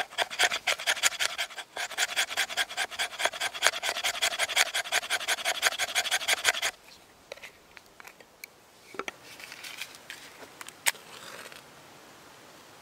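Knife blade scraping along a split wooden stick in fast, rhythmic strokes, about six a second, raising fine curls of wood for tinder. The scraping stops about seven seconds in, leaving a few soft clicks and rustles.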